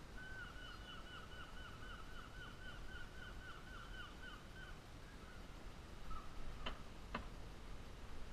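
Spinning fishing reel being wound, giving a high squeaky whine that wavers about four or five times a second for a few seconds; two sharp clicks follow near the end.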